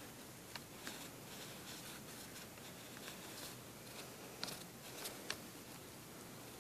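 Faint scratching of a mechanical pencil drawing strokes on lined notebook paper, with a few light ticks.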